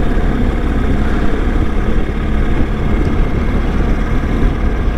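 BMW R1250 GS boxer-twin engine running steadily while the motorcycle is ridden, with wind and road noise over the rider's microphone.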